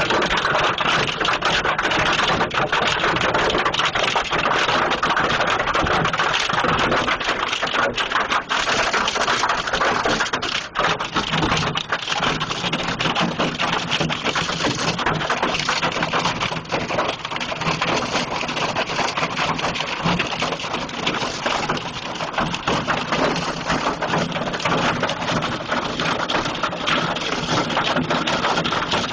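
Hailstorm: hailstones clattering down in a dense, continuous patter of hard impacts, heavy and unbroken throughout.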